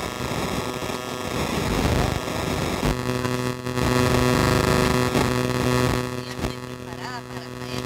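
Harsh, garbled static from a failed audio recording, covering whatever was said; a steady, buzzy hum joins it about three seconds in.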